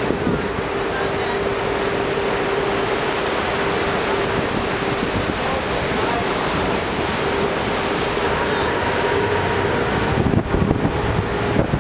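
Sea surf washing and surging against the rock inside a sea cave, over the steady hum of a tour boat's engine. Wind buffets the microphone in uneven gusts about ten seconds in.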